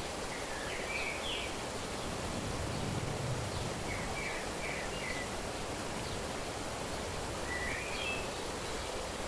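Small birds chirping in three short phrases of quick, stepping notes over a steady outdoor hiss of natural ambience.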